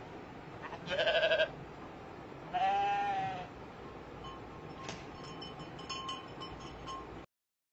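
A goat bleating twice: a short, quavering bleat about a second in, then a longer bleat that rises and falls in pitch around three seconds in.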